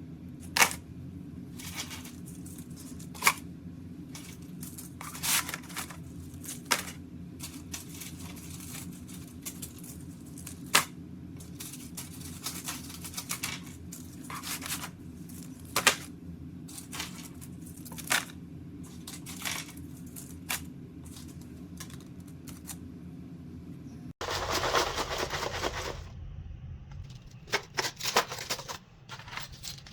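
Enamel bookmarks and their plastic packaging being handled and sorted: irregular sharp clicks and taps, with a longer stretch of rustling after a cut about 24 seconds in, over a steady low hum.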